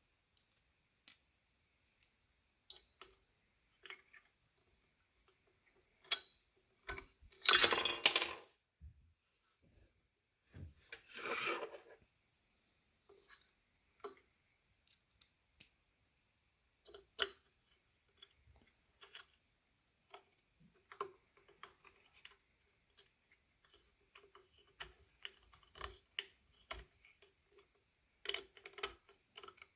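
Small metal hand tools and screws clicking and clinking during bench work on an ebike hub. A louder clattering noise of about a second comes about eight seconds in, and a shorter one around eleven seconds.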